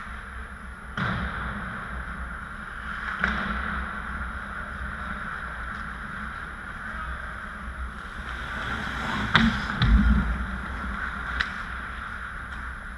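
Ice hockey play on a rink: a steady rink hum with skates on the ice, broken by sharp clacks of sticks and puck, the loudest pair about nine and a half to ten seconds in, the second with a low thump.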